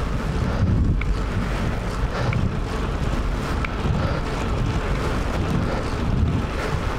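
Wind buffeting the microphone of a camera on a moving bicycle: a steady, fluctuating low rumble with a few faint ticks.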